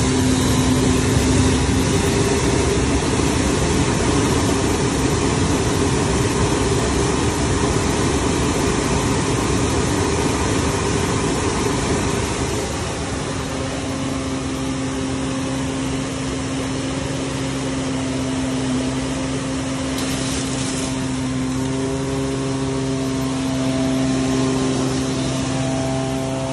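Vactor 2100 vacuum truck running its suction, with the rigid suction tube sucking out a storm-drain box: a dense rushing noise over a steady machine hum. About halfway through the rushing eases, leaving the steadier hum with its tones.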